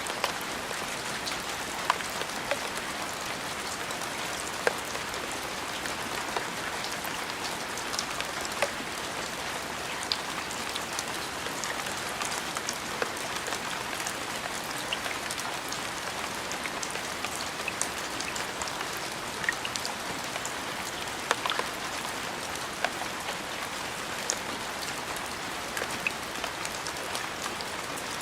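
Steady rain falling: a continuous hiss with many scattered sharp drop impacts.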